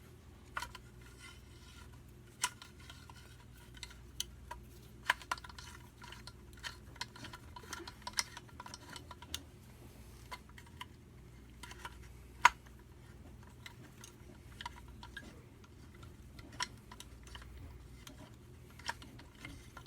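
Small metal engine parts clicking and tapping as they are handled and worked into line on a small two-stroke engine during reassembly, with irregular light clicks and one sharper click about halfway through. A faint steady low hum runs underneath.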